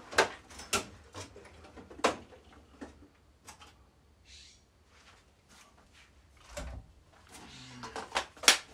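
Handling noise from rummaging for an impact wrench: scattered sharp knocks and clatters of tools and workshop storage, loudest just after the start, about two seconds in and near the end, with a short scrape about four seconds in.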